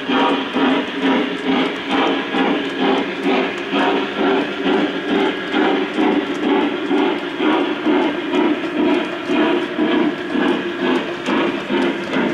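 O-gauge model freight train running along the track, a steady sound that pulses evenly about twice a second.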